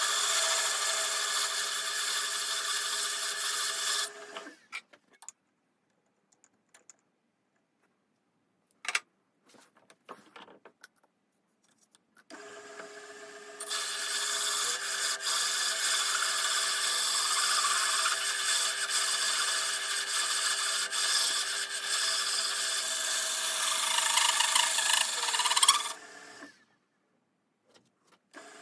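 TV-16 bench lathe running with its milling attachment, machining with a steady whine and a hiss of cutting that stops about four seconds in. After a quiet gap with a few clicks, the machine starts again about twelve seconds in, runs lightly for a moment, then cuts steadily until it stops near the end.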